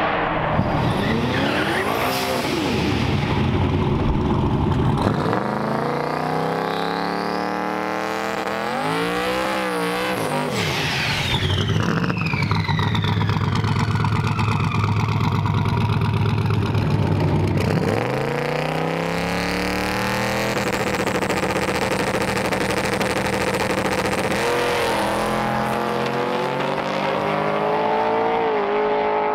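Drag-race cars' engines revving and accelerating hard, pitch sweeping up and falling away several times, with tires squealing as they spin.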